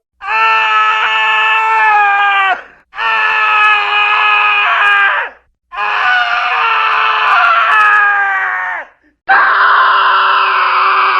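A man screaming in agony, as if being tortured: four long, held screams of about two and a half seconds each, with short pauses for breath between them. The last scream, starting near the end, is rougher and harsher.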